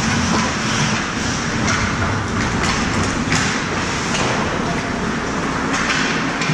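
Ice hockey play on the ice: skate blades scraping and cutting the ice and sticks knocking, with a handful of short sharp scrapes between about two and six seconds in, over a steady noise of the rink.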